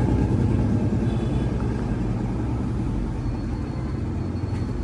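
A steady low rumble that eases off slightly, with a faint high thin tone coming in about three seconds in.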